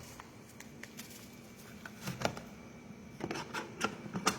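Soft handling noises of a blood pressure cuff and its packaging: scattered light rustles and small clicks, a few around two seconds in and more close together near the end.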